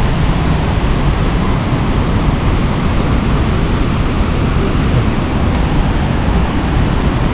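Steady rushing of a waterfall and its river rapids, a loud even wash of water with no breaks; the flow is running very strong after rain.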